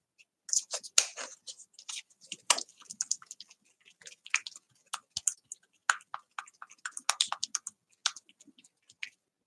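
A plastic card scraped across a paper journal page, spreading paint in quick, irregular strokes with scratchy clicks.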